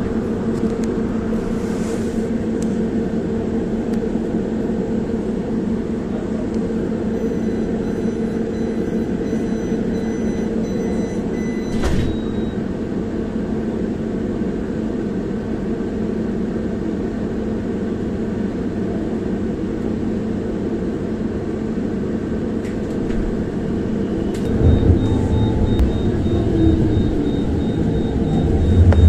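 Bus or tram standing at a stop with its onboard equipment humming steadily. A run of faint, evenly broken high beeps ends in a single knock about twelve seconds in, typical of a door warning and the doors shutting. Near the end the vehicle pulls away, with a louder low rumble and a steady high motor whine.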